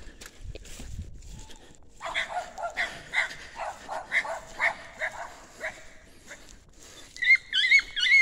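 Dogs barking in a quick run of about three barks a second, then several loud, high-pitched yelps near the end.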